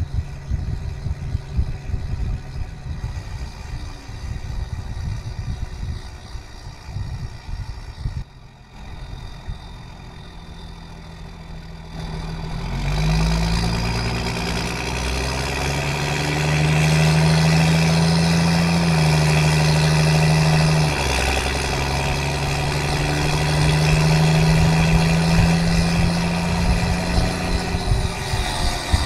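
Exhaust of a 5.9 L Cummins 12-valve diesel in a 1994 Dodge 3500 pickup, running low and uneven at light throttle and going quieter about eight seconds in. About twelve seconds in it gets much louder as the truck accelerates, its note climbing, dipping partway through, then climbing again.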